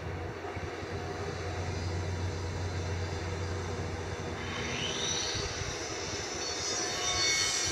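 Hitachi 350 crawler excavator's diesel engine running steadily with a low hum while the bucket digs into sand. A rising whine comes in about four and a half seconds in, and high whining tones build near the end.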